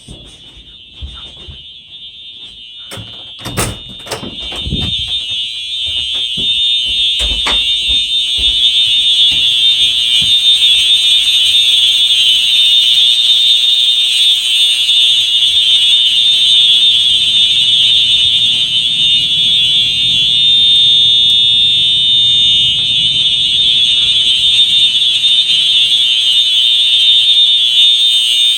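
FCI HEF electronic fire alarm horn sounding a continuous, high-pitched tone that grows louder over the first eight seconds or so, then holds steady. A few thumps are heard about four seconds in and again a few seconds later.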